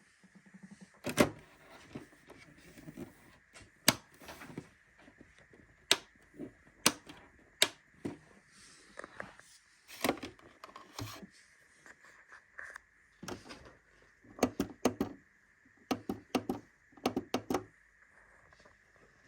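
Irregular sharp clicks and knocks of hard objects being handled in a small room, loudest about a second in and again near four seconds, with a quick cluster later on. A faint steady high tone sits underneath.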